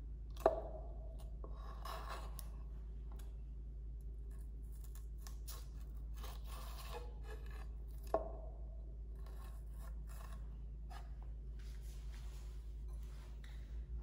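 Chef's knife slitting serrano chiles lengthwise and scraping out their seeds and veins on a bamboo cutting board: soft scraping and rubbing, with two sharp knocks of the blade on the board, about half a second in and about eight seconds in.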